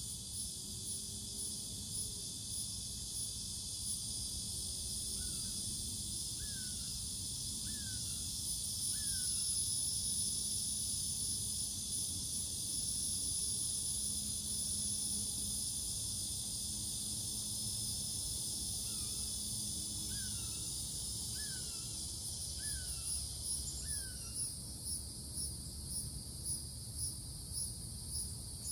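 Steady, high-pitched chorus of insects with a faint pulsing chirp about twice a second that grows plainer near the end. A bird calls a short run of four falling notes about five seconds in, and another run about nineteen seconds in.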